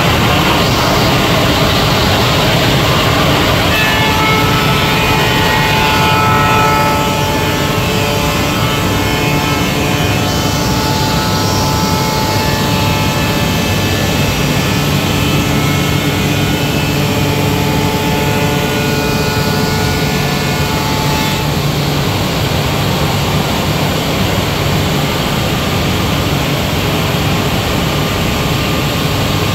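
SCM Tech Z2 CNC woodworking machining centre running with a steady, loud machine noise. A set of steady whining tones sounds over it from about four seconds in until about two-thirds of the way through.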